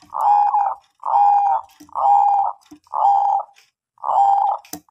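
Bangkok-strain zebra dove (perkutut) cooing: five short rolling coos in a row, about one a second, each held on a steady pitch.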